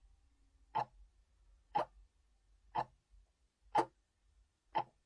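Sharp clock-like ticks at a steady one per second, over a faint low rumble.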